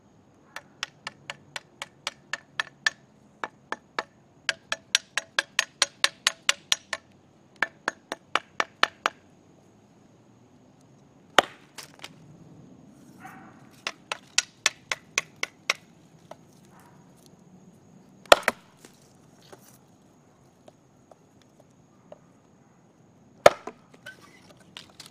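Parang machete chopping a thin wooden stick held against a log: runs of quick light chops, about three a second, each a sharp tap with a slight ring. Later come a few louder single chops.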